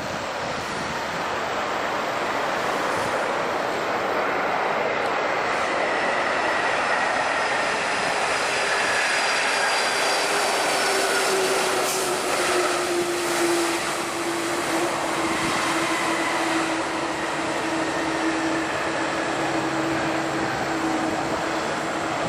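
Boeing 747 jet engines on approach: a steady rushing roar with whining tones that slowly fall in pitch.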